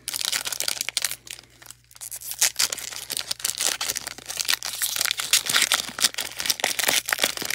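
Foil wrapper of a Panini Donruss basketball card pack crinkling and tearing as it is ripped open by hand: a dense run of crackles, with a short lull about a second and a half in.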